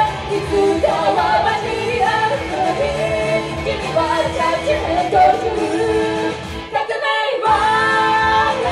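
Two female vocalists singing live over a pop backing track. The low end of the music drops out briefly about seven seconds in, then the singing carries on with long held notes.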